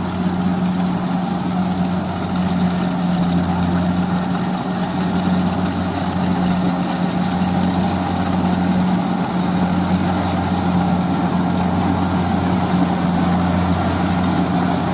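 Kubota DC-70 combine harvester's diesel engine running steadily with a constant low hum, over the wide rattle and whir of its machinery at work.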